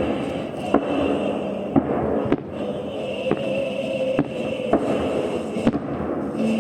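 Fireworks salute: aerial shells bursting with sharp bangs, about seven in quick succession at roughly one a second, over a continuous background.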